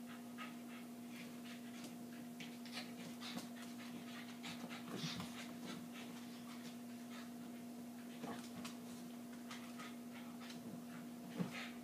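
Silky terriers play-wrestling: quick, irregular panting and scuffling, over a steady low hum.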